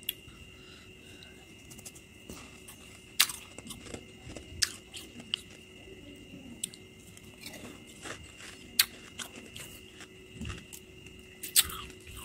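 Slushy freezer frost being bitten and chewed: irregular crunches, the loudest a few seconds apart, with smaller crunches between them.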